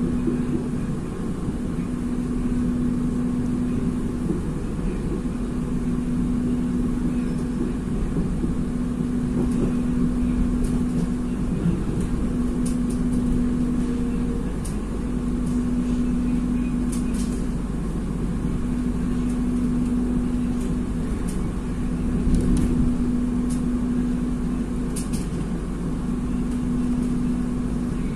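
Passenger train running, a steady low rumble with a low hum that drops out briefly every few seconds.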